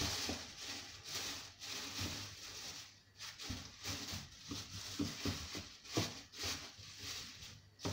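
Thin plastic bin liner rustling and crinkling as it is handled and fitted over the rim of a kitchen trash bin, with a few sharper crackles.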